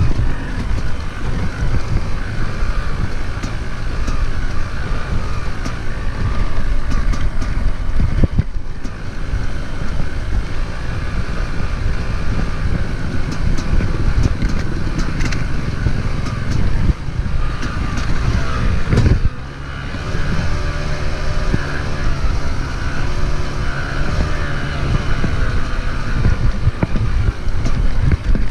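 Dirt bike engine running as the motorcycle is ridden over rough grass, with wind buffeting the microphone; the engine note dips briefly about two-thirds of the way through.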